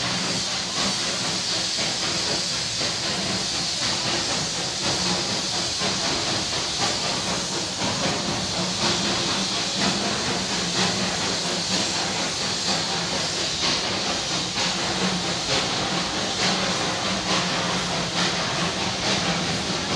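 Darjeeling Himalayan Railway toy-train steam locomotive hissing steam steadily, a continuous hiss with a low hum beneath it.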